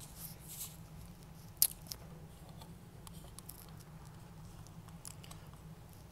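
Plastic and die-cast parts of a Power Rangers Legacy Collection zord toy being handled and folded shut: light rubbing and small ticks, with one sharp click about a second and a half in as a part snaps into place.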